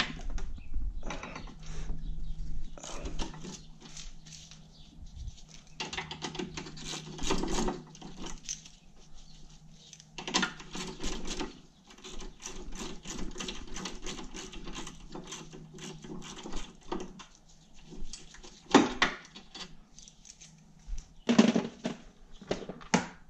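Small ratchet with a 1/2 socket clicking in quick runs as it undoes the two bolts holding the go-kart's rear brake to its mounting. Near the end, a few louder knocks and clatters of metal tools being handled in a toolbox.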